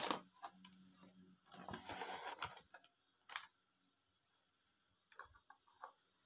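Small plastic toy kitchen pieces being handled and pulled from a cardboard box: a sharp clack at the start, a rustling scrape from about one and a half to two and a half seconds in, another clack a little after three seconds, and a few light plastic taps near the end as a toy lid is set on the toy stove.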